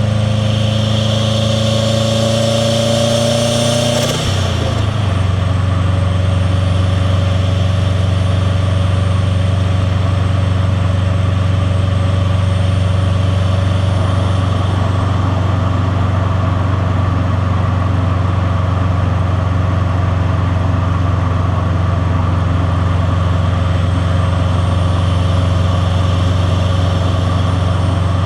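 The turbocharged EJ207 flat-four of a 2001 JDM Subaru WRX STi pulling with slowly rising revs. About four seconds in the throttle closes: a sharp burst from the blow-off valve as the revs drop. The engine then runs at a steady low speed with an even boxer rumble.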